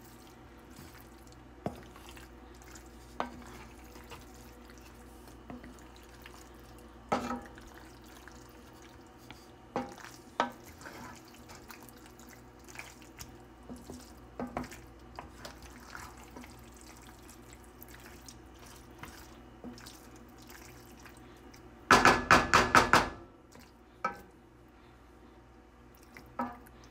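Wooden spoon stirring thick, creamy pasta and chicken in a pan: soft wet squelching with scattered light knocks of the spoon against the pan. About 22 seconds in, a quick run of about half a dozen loud knocks of the spoon on the pan.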